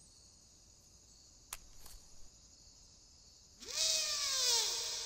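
Horror film soundtrack under a faint steady high hiss: a single click about a second and a half in, then, about three and a half seconds in, a loud sound of many pitches sliding downward that slowly fades.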